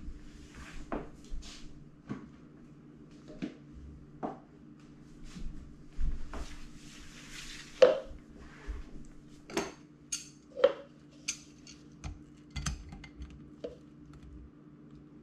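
Hand tools and a cup being handled: irregular sharp clinks and clicks as pliers are picked up and set against the dishwasher's metal drain hose clamp, over a steady low hum.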